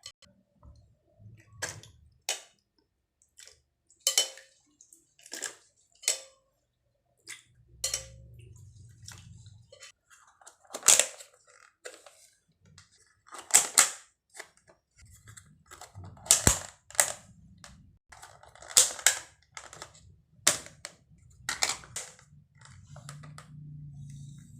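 Irregular sharp knocks and clicks, a dozen or so, from utensils and containers handled during kitchen food preparation.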